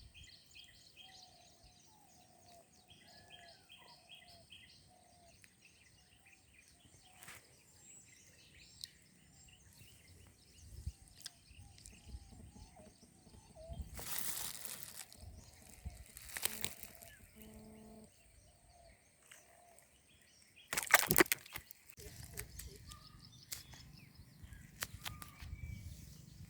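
Birds calling and chirping in quick repeated series, over a thin steady high-pitched tone. A few brief noisy bursts break in, the loudest about 21 seconds in.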